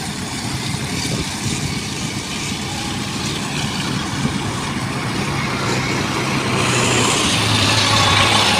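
Rice combine harvester running, a steady dense engine and machinery noise. It grows louder, with a deeper engine hum, over the last couple of seconds.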